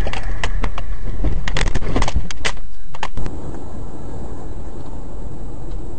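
A quick run of sharp clicks and knocks for about three seconds. The sound then switches abruptly to the steady road and engine noise heard inside a moving car, with a few faint ticks.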